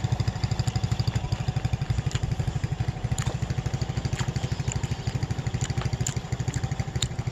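A small engine idling steadily close by, an even putter of about a dozen beats a second.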